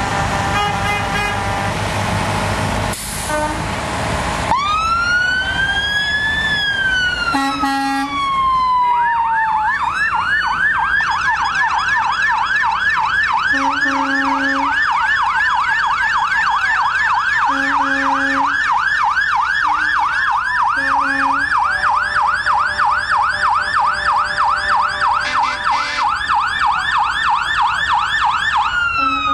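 Fire truck siren and horn: a loud horn blast, then the siren rising and falling in a long wail and switching about nine seconds in to a fast, repeating yelp, with short low horn blasts over it now and then.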